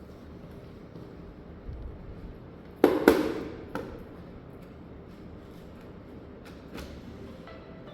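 Two loud hard knocks with a brief clattering ring about three seconds in, then a lighter click and a few faint clicks: hard objects being handled and set down while working on a computer. Near the end a phone ringtone begins.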